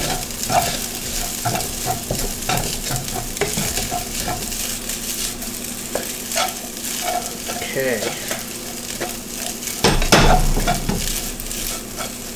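Fried rice sizzling in hot oil in a wok while a wooden spatula stirs and scrapes it, about two strokes a second, over a steady hiss. About ten seconds in comes a louder knock and rattle as the pan starts to be shaken and tossed.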